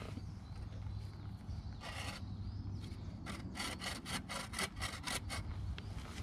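Bow saw blade in a homemade wooden frame cutting wood, its blade freshly tensioned tight. One stroke about two seconds in, then a quick even run of about ten short strokes, some four or five a second.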